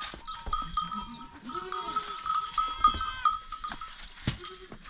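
Goats bleating in a crowded pen: a few short calls, over a steady high ringing tone and scattered knocks from the animals moving about.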